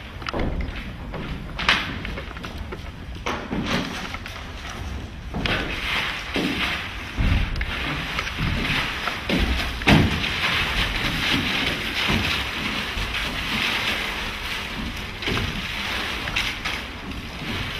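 Live stage sound from an experimental dance-and-sound performance: irregular knocks, thuds and scrapes of objects being handled, over a rushing noise that grows thicker about halfway through. The sharpest knock comes about ten seconds in.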